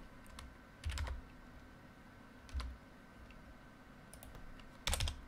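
Computer keyboard keystrokes as a number is typed into the software's framerate box: a few separate taps spread over the seconds, with a quick cluster of taps near the end.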